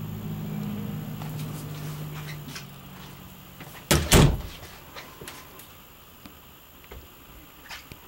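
A door shutting with two heavy knocks in quick succession about four seconds in, followed by a few light clicks. Before it, a steady low hum fades away.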